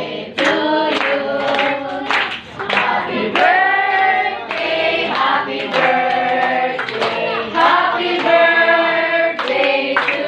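A group of people singing together, with hand claps.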